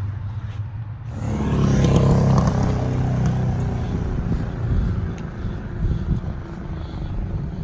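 A road vehicle passing close by: its sound swells about a second in, is loudest a second later, then fades away over several seconds.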